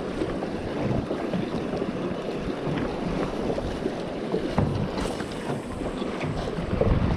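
Wind buffeting the microphone over water lapping against a small boat, with a couple of light knocks about four and a half and five seconds in.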